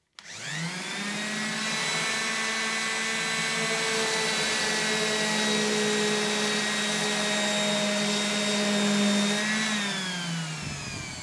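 Ryobi random orbital sander with a 40-grit disc spinning up and then running at a steady hum as it sands the end of a Tasmanian oak board. About nine and a half seconds in it is switched off and winds down, falling in pitch.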